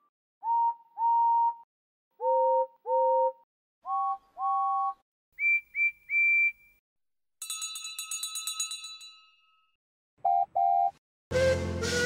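A run of steam-locomotive whistle sound effects, each a short double or triple toot at a different pitch, some on one note and some chiming on two. About halfway through a bell rings rapidly for a couple of seconds, then two more short toots come, and near the end a louder, breathier steam whistle with several tones sounds.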